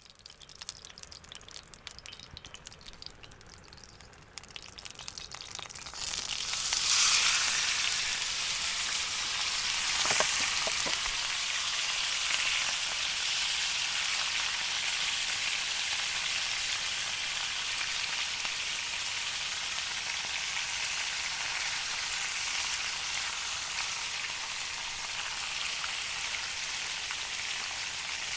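Faint crackling of oil heating in a pan, then about six seconds in a loud sizzle as food hits the hot oil, settling into steady frying.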